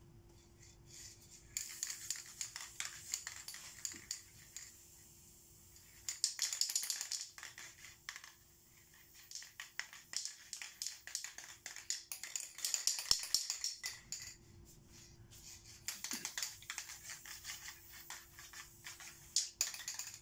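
Spray-paint work on a painting board: four or five bursts of hissing and scratchy rubbing, each one to four seconds long, with short quiet gaps between them.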